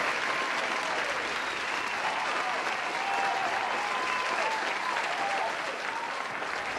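A crowd of guests applauding steadily, with voices calling out over the clapping. The applause eases off slightly near the end.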